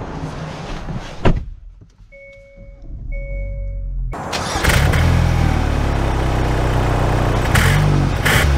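A car door shuts with a thunk about a second in, then two short electronic chimes sound in the quiet cabin. About four seconds in, the Hyundai Santa Cruz's turbocharged four-cylinder is heard running at a steady idle from near the exhaust.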